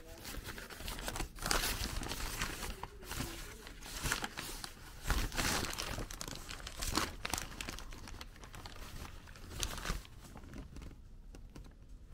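Brown paper bag crinkling and rustling as a hand pulls it open and pushes the paper aside, in irregular crackles, quieter for the last couple of seconds.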